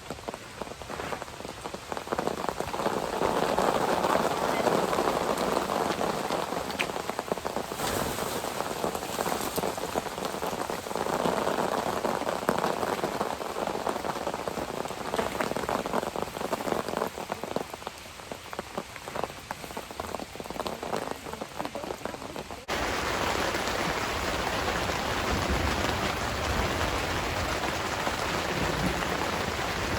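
Heavy rain falling, with many separate drops striking close by. About three-quarters of the way through it cuts abruptly to a steadier, hissier stretch of rain.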